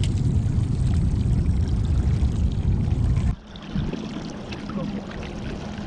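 Outboard motor running at trolling speed, with water churning and splashing in its wake. A loud low rumble drops suddenly about three seconds in to a quieter, steady motor hum over lapping water.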